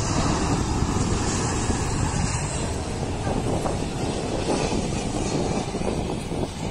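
Twin-engine jet freighter flying low overhead on final approach to land, a loud, steady jet-engine rumble.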